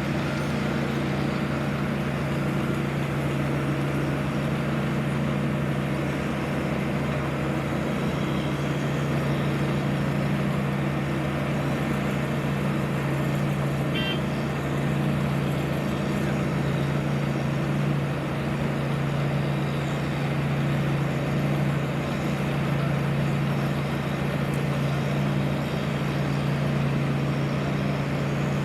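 Heavy road-construction machinery engine running steadily, a constant low drone with no revving. A short high chirp sounds about halfway through.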